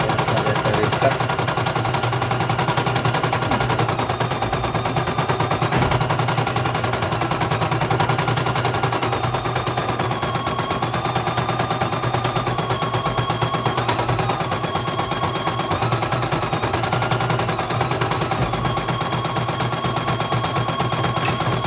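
CNY E900 portable computerized embroidery machine stitching a design during a test run: a fast, steady needle clatter with a thin whine that steps up and down in pitch now and then. It is running smoothly.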